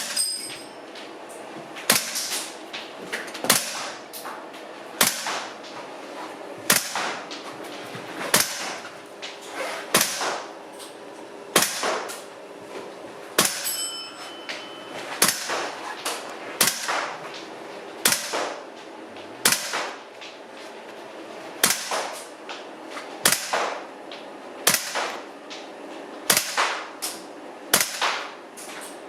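WE SCAR-H gas blowback airsoft rifle in an SRU bullpup kit firing single shots at a slow, steady pace, about twenty sharp cracks roughly one every second and a half, each with the metallic clack of the blowback bolt.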